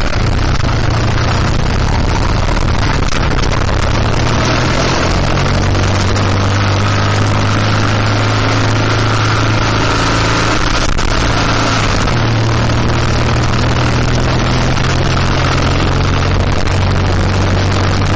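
BMW R1200GS boxer-twin engine running steadily at road speed, with heavy wind rush over the microphone; the engine note steps up a little about twelve seconds in.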